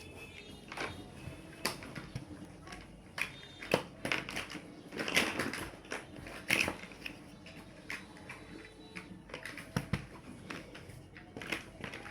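Plastic building blocks being handled and snapped together: irregular clicks and clacks, thickening into a quick run of rattling about five seconds in.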